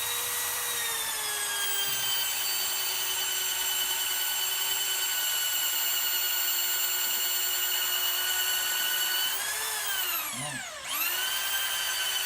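Electric drill running at steady speed with a high motor whine. About nine and a half seconds in the pitch sags and winds down as the trigger is eased off, then it speeds up again about a second later.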